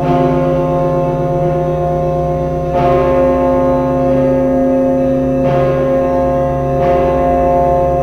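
Russian Orthodox church bells ringing: several deep bell tones hum on without a break, with fresh strikes about three times, each stroke ringing on into the next.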